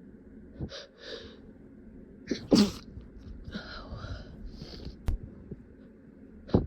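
A person's hitching, shaky breaths build up to a sneeze about two and a half seconds in, only partly held back. More breathy gasps follow, with a brief click, then a second short, sharp stifled sneeze near the end.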